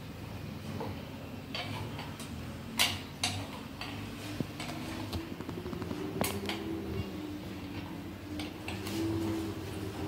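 Clicks and knocks of plastic ceiling-fan parts and a screwdriver being handled as the downrod and canopy are fitted to the motor housing, the sharpest knocks about three and six seconds in. A low steady hum runs underneath and grows a little louder near the end.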